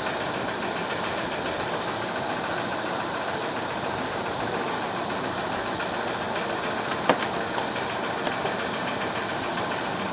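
Steady machine-like running noise, even and unchanging, with a sharp click about seven seconds in and a fainter one a second later.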